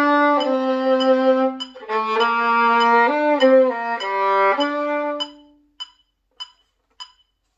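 Solo violin playing a slow exercise of long bowed notes that step from pitch to pitch, the last note dying away about five and a half seconds in. A metronome ticks steadily about every 0.6 seconds, under the playing and on after it stops.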